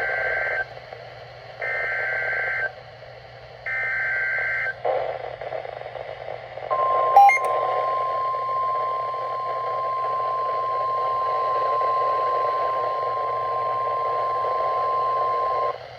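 Emergency Alert System SAME header: three roughly one-second bursts of warbling two-pitch data tones, over radio static. After a short pause comes the single steady NOAA Weather Radio 1050 Hz warning alarm tone, held for about nine seconds and then cut off.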